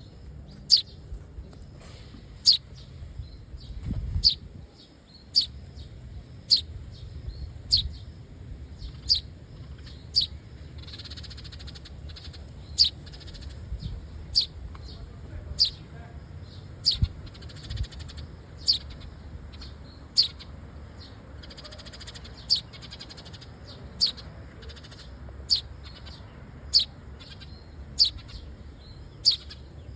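A bird repeating a short, high call that falls in pitch, about once every second or so, over a steady low rumble.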